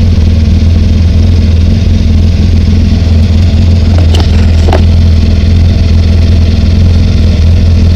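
Off-road vehicle engine (ATV or side-by-side) idling steadily close by, with two light clicks about four seconds in.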